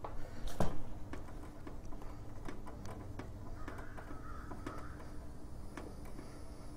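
Small metal clicks and taps as hands work a lawn tractor's carburetor loose from the Briggs & Stratton engine, with a sharper click about half a second in.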